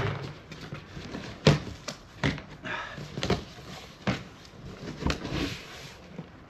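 Flaps of a large cardboard box being pulled open and folded back: a series of dull knocks, about one a second, with rustling of cardboard between them.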